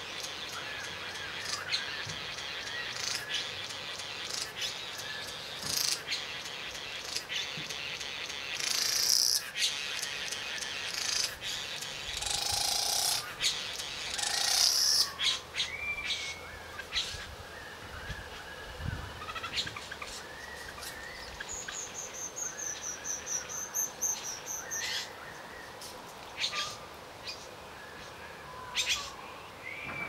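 Male satin bowerbird's courtship song: a run of buzzing, churring and clicking calls of a mechanical kind, with louder buzzy bursts about nine seconds in and again a few seconds later, and a fast, high pulsed trill later on.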